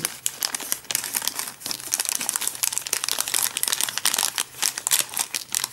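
Thin plastic packaging crinkling and crackling as it is handled, a dense run of small irregular crackles.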